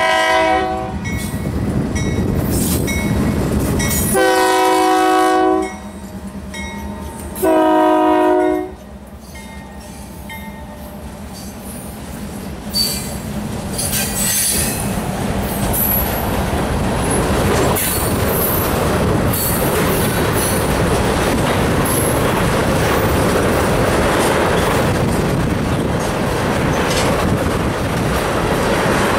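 The multi-note air horn of Union Pacific GE C44AC 6266, leading a freight train, sounds for a grade crossing: the tail of one blast, then two long blasts about three seconds apart. The locomotives pass, followed by a steady run of empty tank cars rolling by with rhythmic wheel clatter.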